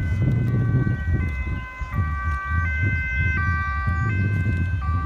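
Dutch two-tone emergency siren on an approaching fire service vehicle, switching between its high and low tone about every 0.7 seconds, with a low rumble underneath.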